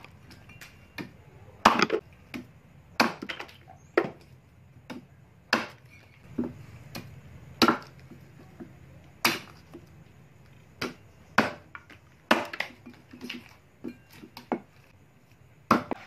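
Handmade steel axe, its blade cut from a motorcycle brake disc, chopping into a tree branch laid on a wooden block: about a dozen sharp blows at an uneven pace, with lighter knocks between.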